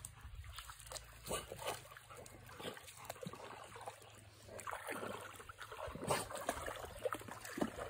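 A dog wading through shallow stream water, with light, irregular splashing and sloshing that gets busier in the second half.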